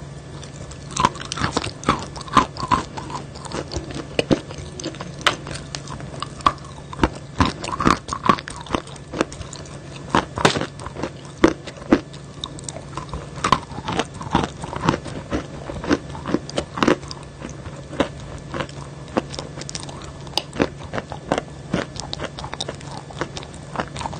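Close-miked eating: a person biting and chewing pieces of chalk dipped in a brown paste, with irregular sharp crunches every second or so over a steady low hum.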